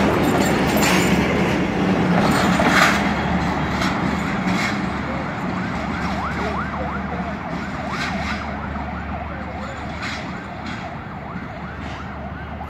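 Passenger train coaches rolling away over the rails, fading steadily, with single wheel clicks over rail joints every second or two. In the second half a high wavering squeal rises and falls again and again.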